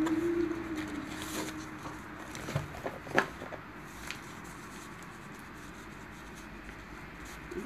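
Small paper sachet and cardboard box being handled: soft rustling and crinkling, with a few sharp clicks, the loudest about three seconds in.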